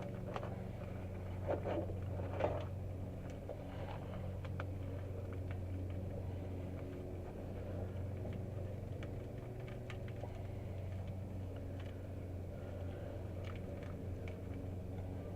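A steady low mechanical hum, with scattered small clicks and rustles from hands working, a cluster of louder ones about two seconds in.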